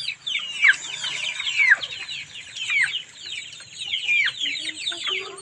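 A flock of white chickens cheeping continuously as they feed: many overlapping short, high, falling chirps, with a longer falling call about once a second.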